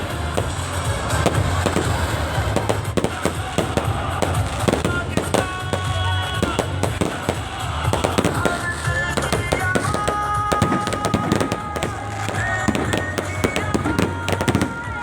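Fireworks going off in quick succession, a dense run of crackling and popping bursts. Music plays over it at the same time.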